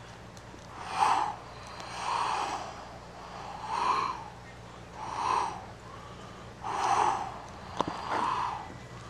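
A person breathing hard in loud, gasping breaths, about one every second and a half. There is one sharp click about eight seconds in.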